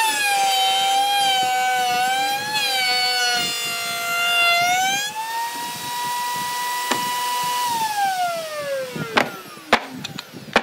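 A power tool's motor whining at high speed, its pitch dipping and recovering as it works, then winding down steadily after it is switched off. A few sharp knocks follow near the end.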